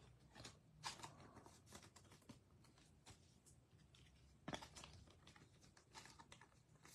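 Near silence broken by faint rustles and light clicks of trading cards and pack wrappers being handled, the most distinct cluster about four and a half seconds in.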